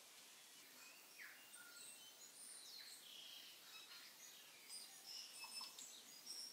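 Faint chirping of small birds over a low, steady hiss, with the chirps coming more often near the end.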